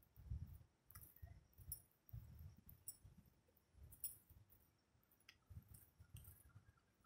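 Faint, muffled footsteps of a person walking on paving: soft low thuds about every half second to second, with a few light clicks.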